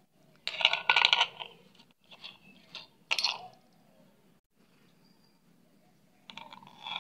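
Siamese cat grooming itself close to the microphone: a run of rapid clicking, clinking strokes about half a second in, shorter bursts a couple of seconds later, and another near the end.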